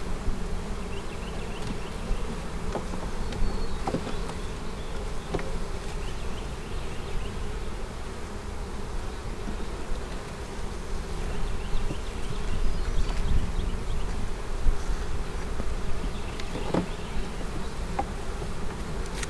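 Honeybees buzzing steadily around an opened hive, with a few light knocks.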